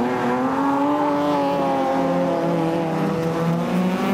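Rallycross cars of the over-1600 cc class racing at full throttle, their engines revving hard. The engine pitch climbs in the first second, then holds and wavers through the corner.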